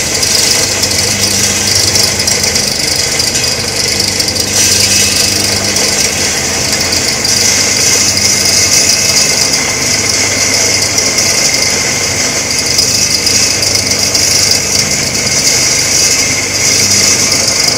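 Electric stainless-steel coffee grinder running steadily, its motor humming low while the grinding discs mill coffee beans with a continuous high hiss.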